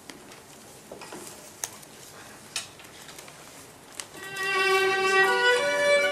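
A few scattered clicks and knocks over a quiet background, then about four seconds in a violin enters, playing slow, sustained bowed notes.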